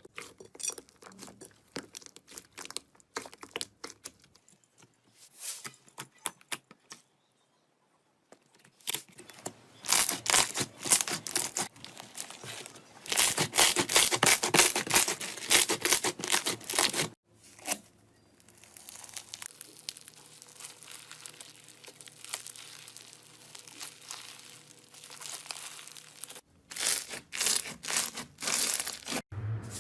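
Slime being squeezed, stretched and pulled apart by hand, with dense crackling and popping that comes in long bursts, loudest about halfway through and again near the end, and sparser, softer squishing between them.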